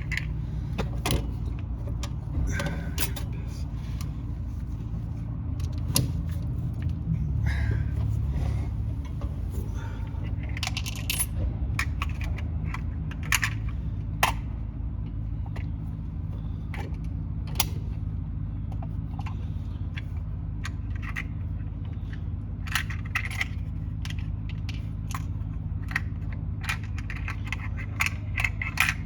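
Scattered small metallic clicks and clinks at irregular intervals, like keys or small metal parts being handled, over a steady low hum.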